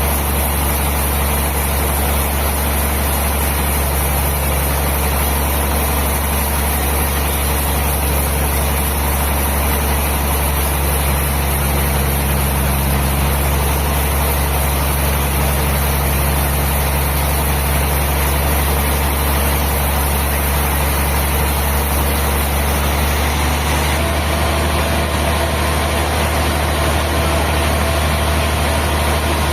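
Sawmill machinery running with a steady, deep engine-like hum; the tone shifts slightly about 23 seconds in.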